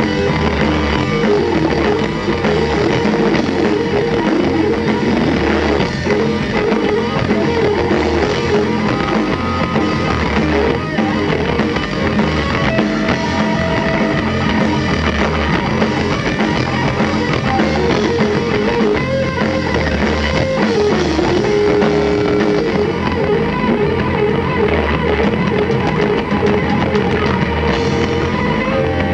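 Live rock band playing loud and steady: distorted electric guitars and bass over a drum kit.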